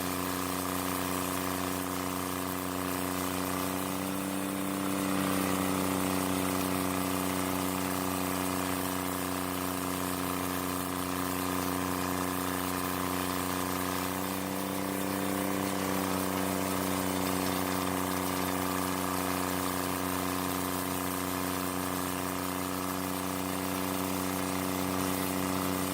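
Carlton 7015 stump grinder's engine running steadily at constant speed while grinding, its steady hum swelling slightly a few times as the load shifts.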